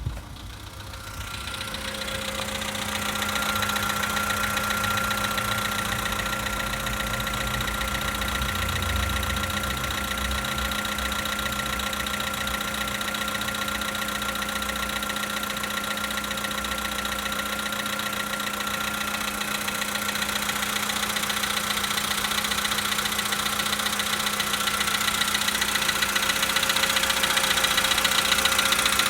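Volkswagen Polo Sedan's four-cylinder petrol engine idling cold with a knock, the cold-engine knocking the owner is recording. The sound swells over the first few seconds and then holds steady.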